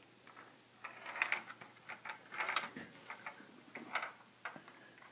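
Perplexus Epic maze sphere being turned in the hands, its ball rattling and clicking irregularly along the plastic tracks inside, in clusters of clicks that start about a second in.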